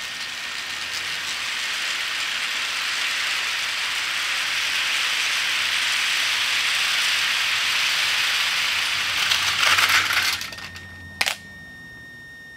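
Long HO scale freight train of Bethgon gondola cars clattering steadily around a spiral model railway track. The clatter grows louder, peaks in a brief harder rattle, then cuts off as the train stops, followed by a single sharp click.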